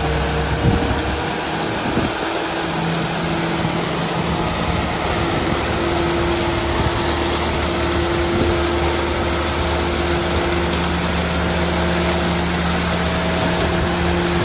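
Engine of a self-loading concrete mixer running steadily, a constant mechanical hum over a rushing noise.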